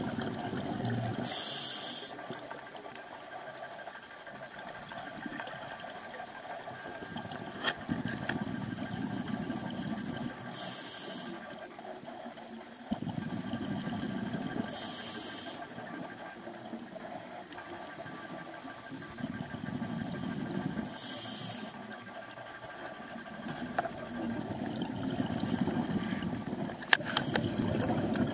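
Scuba diver breathing through a demand regulator, heard underwater: several short sharp hissing inhalations, each followed by a longer bubbling, rumbling exhalation.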